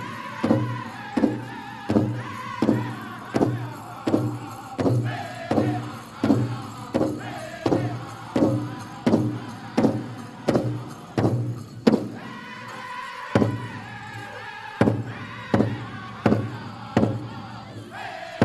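Powwow drum group singing a chicken dance song: a group of voices singing over a big drum struck together in a steady beat of about one and a half strokes a second. The beat pauses briefly about twelve seconds in, then carries on.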